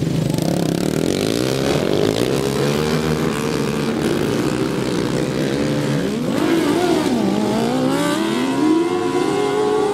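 Several racing ride-on lawnmower engines revving as the mowers race past, their pitch rising and falling, with a sharp dip and climb about seven seconds in.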